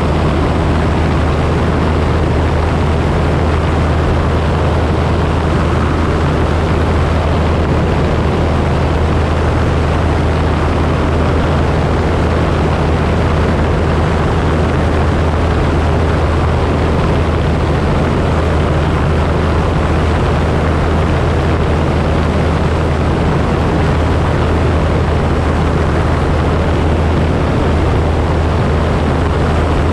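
Single-engine propeller light aircraft in cruise: the piston engine and propeller drone steadily, a low hum under a constant rush of air, unchanging throughout.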